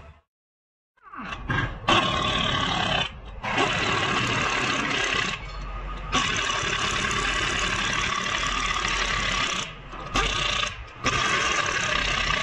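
Pneumatic impact wrench running in several loud bursts with short breaks, driving the lug nuts of a front wheel as it is fitted back on.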